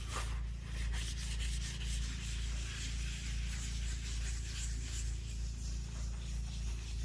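Rag rubbing and scrubbing across a rusty steel table saw top in repeated strokes, wiping off sprayed-on rust remover.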